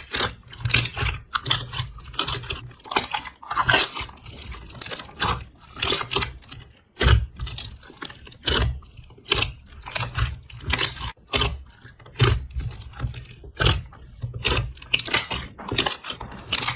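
Slime being squeezed and pressed by hand, giving an irregular run of sharp crackles and pops, a few a second, with short gaps between handfuls.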